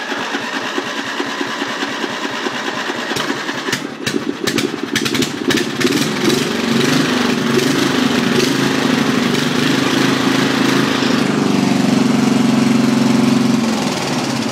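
Riding lawn mower engine running just after a push-button start, with a run of sharp clicks about four to six seconds in. The engine speed then rises and holds higher, easing down near the end.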